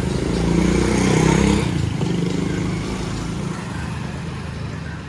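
Motorcycle engine running, growing louder until about a second and a half in, then slowly fading away.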